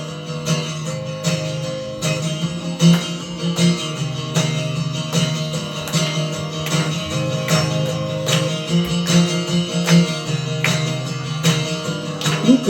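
Acoustic guitar strummed in a steady, even rhythm: a song's instrumental intro, with no voice yet.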